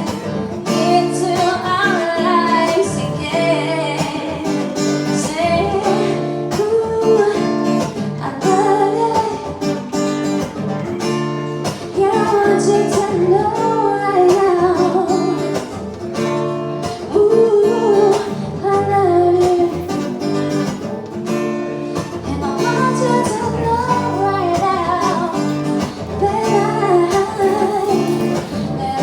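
Live acoustic guitar strummed steadily while a singer sings over it.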